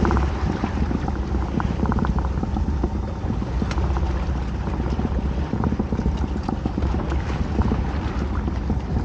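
Wind buffeting the microphone over water splashing and slapping against the side of a small inflatable boat, with a few light clicks about two seconds in.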